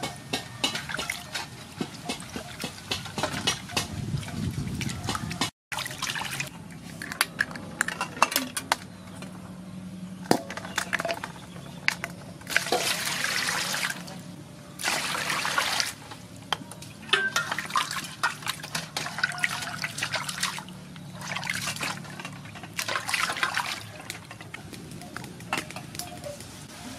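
Water sloshing and splashing in a metal basin as live sea snails are rubbed and washed by hand. Many sharp clicks and knocks run through it, with louder spells of splashing now and then.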